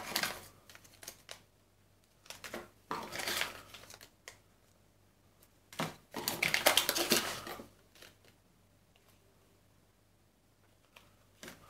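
Anti-static plastic bags crinkling and rustling as they are pulled from a cardboard box and handled, in short bursts with a few small taps; the longest and loudest crinkle comes about six seconds in.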